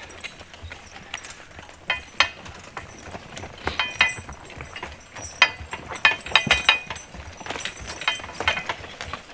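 A draft horse team turning a tandem log wagon: irregular metallic clinks and rattles of harness and chain hardware, with knocks from the wagon and hooves.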